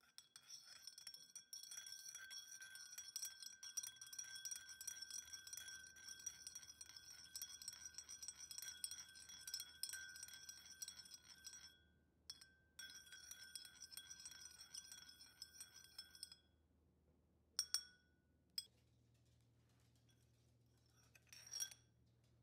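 Metal teaspoon stirring water in a small glazed ceramic bowl, clinking rapidly against the sides while the bowl rings, dissolving natto starter powder. The stirring stops after about sixteen seconds, followed by a few separate clinks.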